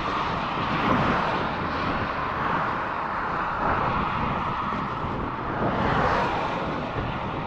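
Motorway traffic passing: a steady rush of tyre and engine noise that swells as cars go by, about a second in, around four seconds, and again near six seconds.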